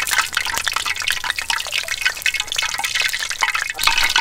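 Sugar syrup dripping and splashing as soaked badusha are lifted from the bowl on a perforated steel skimmer: a dense run of small wet ticks and drips.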